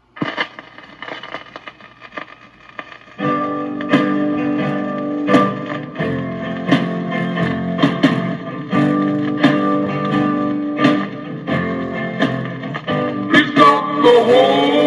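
A 45 rpm vinyl record of guitar and singing playing back on a turntable set to 33 rpm, so the music comes out too slow and low in pitch. It starts quietly and gets louder about three seconds in.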